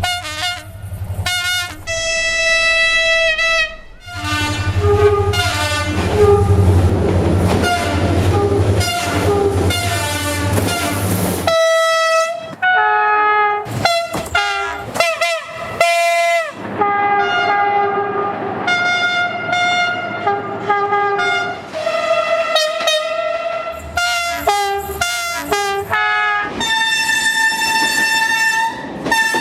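A rapid series of train horn blasts from different trains, edited back to back with abrupt cuts between them; most horns sound two or more notes together. From about four seconds in to about eleven seconds in, a loud low rumble and rushing noise of a passing train lie under the horns, and a few seconds later one horn's pitch bends as the train passes.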